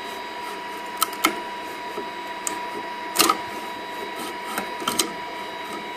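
A metal spatula prying a PLA print off a BuildTak-covered printer bed, giving a few sharp clicks and taps as the blade works under the part, the loudest about three seconds in. Under it runs the 3D printer's steady whirr with a faint constant whine, the machine still switched on.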